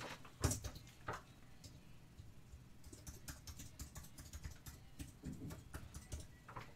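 Faint, irregular typing and clicking on a computer keyboard, with a couple of louder clicks in the first second.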